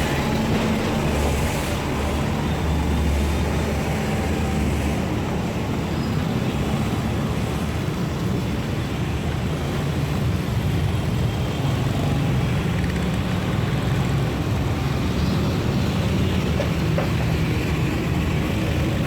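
Street traffic: a steady rumble of vehicle engines passing along the road.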